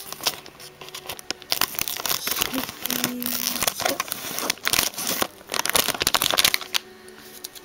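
Pokémon card pack packaging being handled: irregular crinkling and rustling, with scattered sharp clicks and taps, dying down near the end.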